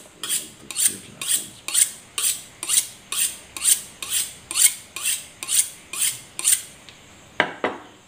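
Tramontina boning knife drawn along a small Victorinox sharpening steel: about fourteen short scraping strokes of steel on steel, roughly two a second, honing a blade that was dulled on purpose. The strokes stop about six and a half seconds in, followed by a single knock near the end.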